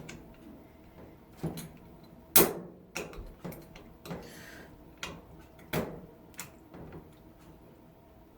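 Hands and a screwdriver working open a fire alarm pull station, an Edwards EST270A, to reset it: scattered light clicks and knocks, about seven of them, the loudest between two and three seconds in, with a short scrape about four seconds in.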